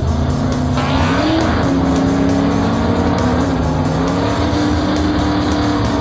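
Cartoon race car engine sound effect revving up about a second in, then holding a steady pitch, over background music with a steady beat.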